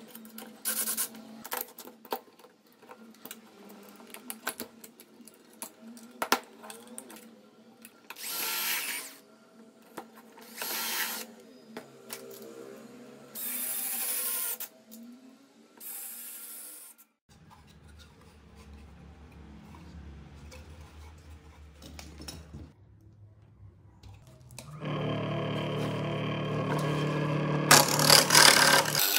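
Cordless drill driving screws into plywood joints in short bursts of about a second each, four times in the first half. Near the end a washing-machine-motor disc sander runs steadily, with a plywood edge pressed against the disc in the last seconds.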